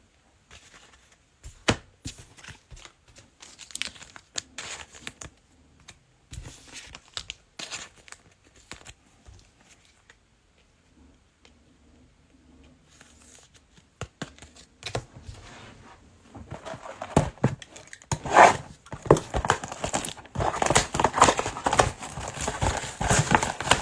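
Trading-card pack wrappers being torn open and crinkled, with scattered clicks of cards and packaging being handled. The crinkling is sparse at first, eases off midway, then turns dense and loud for the last several seconds.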